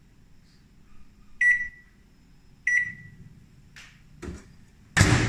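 Samsung MC28H5013AK microwave oven beeping twice, two clear tones about a second and a half apart. A couple of light knocks follow, then a loud clunk near the end.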